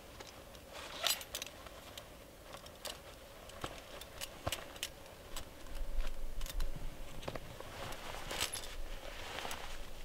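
Scattered light clicks and rustles of a person handling small gear and clothing, with a brief low rumble about six seconds in.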